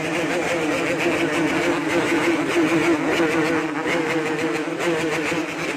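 Yamaha RX-King's single-cylinder two-stroke engine held at high revs, its pitch wavering up and down slightly under the throttle.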